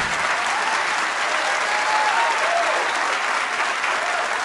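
Audience applauding steadily, with a few cheering voices rising over the clapping.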